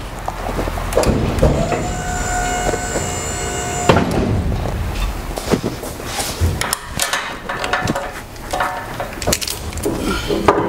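A box truck's electric-hydraulic liftgate pump motor runs with a steady whine for about two and a half seconds as the platform rises, then cuts off with a clunk. Scattered knocks and clatter of metal and gear follow.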